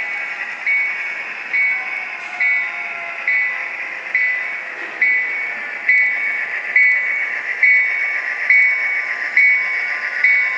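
Sound-decoder bell of an HO-scale Santa Fe F7A diesel model locomotive ringing steadily, a little more than one strike a second, each strike dying away, over the train's steady running sound.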